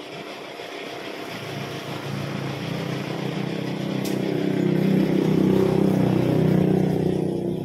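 A motor vehicle's engine running close by, growing louder over several seconds and fading near the end, like a vehicle passing.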